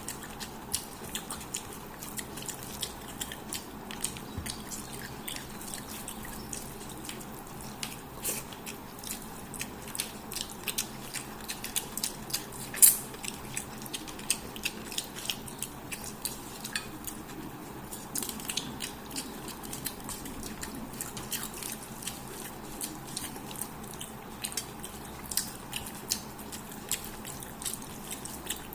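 Close-miked eating of fish head curry with rice: wet mouth smacks and chewing clicks, several a second, with one much louder sharp crack about halfway through.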